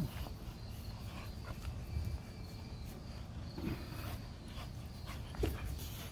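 Dog playing tug-of-war on a rope toy, with a low rumble and a few soft clicks and knocks as it pulls. Insects chirp faintly in a steady high tone.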